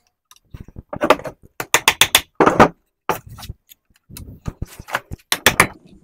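A hammer striking a short screwdriver set against the pressed-on rear fan of a solar pool pump motor, driving the fan off its shaft. It comes as clusters of quick, sharp taps.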